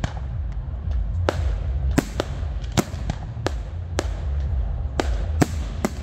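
Fireworks display: aerial shells bursting overhead in quick succession, a sharp bang about every half second, over a continuous low rumble.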